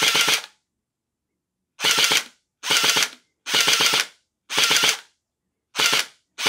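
Splat-R-Ball gel blaster's open V3-style gearbox, fitted with metal gears, cycling on full auto in short trigger bursts: a rapid mechanical clatter of the gears and piston cycling, about six bursts of half a second or so with short gaps between them. The gears are meshing and cycling, not stripped.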